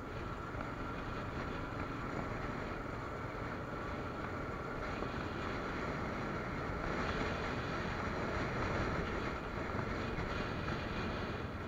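ATV (quad bike) engine running steadily while riding along a dirt road, with a steady whine through it; it grows a little louder about seven seconds in.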